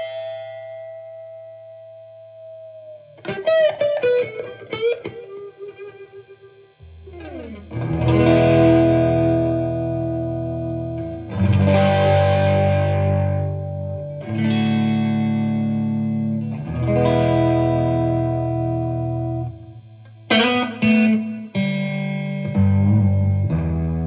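Overdriven electric guitar: a Gibson Les Paul R9 reissue played through a cranked 1972 Marshall Model 1986 50-watt Bass head, channels jumped, into a Marshall 4x12 cabinet with G12 speakers. A held chord fades over the first few seconds, then comes a quick flurry of single notes. After that, heavy chords are each held about three seconds, with a few short stabs near the end.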